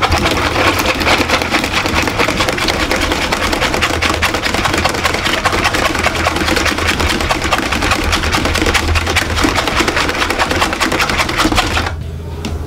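Wire whisk beating an egg yolk into sugar water in a metal bowl: a fast, continuous clatter of wire against metal that stops briefly near the end.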